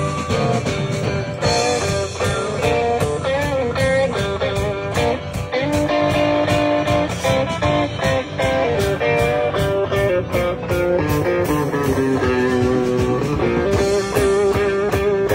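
Live blues band playing an instrumental passage: guitar carrying held, bending notes over drums keeping a steady beat.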